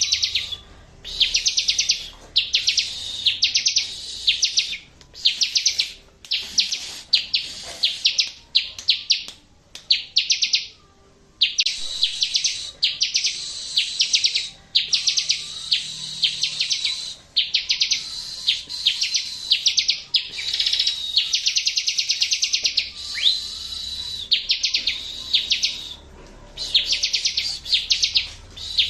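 Bar-winged prinia (ciblek) song: fast, high trilled phrases of one to two seconds each, repeated with short gaps. It is a masteran recording meant to prompt a ciblek that has gone quiet to sing back.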